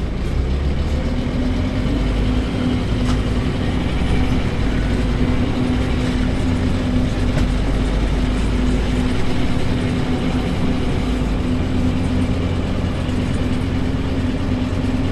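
Scania DC9 five-cylinder diesel engine of a Scania K310UD double-deck bus running under way through its ZF automatic gearbox in drive, with a steady whine that sets in about a second in. The engine note changes about eleven seconds in.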